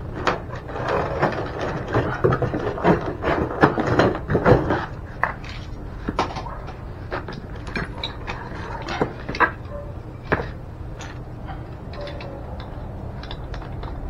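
Cardboard box and packaging rustling and scraping for the first few seconds, then scattered clicks and knocks as brass plumbing fittings and tools are picked up and set down.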